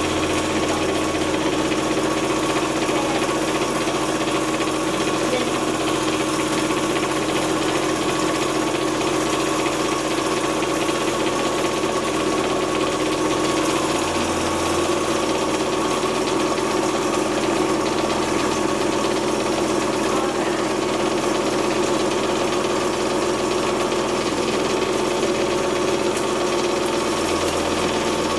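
Small electric home candyfloss machine running, its motor spinning the heated head as it spins sugar into floss, a steady hum.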